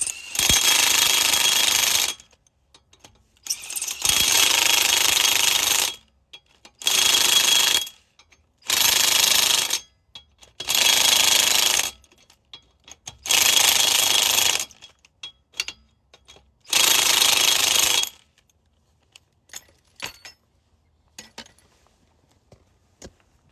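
Impact wrench hammering in seven bursts of one to two and a half seconds each, running the lug nuts onto the spare wheel, then stopping about 18 seconds in, with a few light clicks after.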